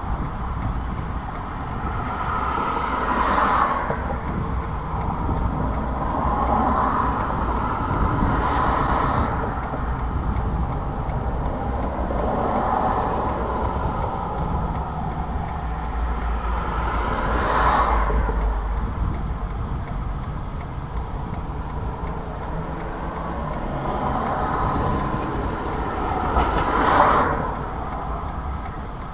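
Road traffic passing a parked car: a steady low rumble, with single vehicles swelling up and fading away every few seconds. The loudest passes come about two-thirds of the way in and again near the end.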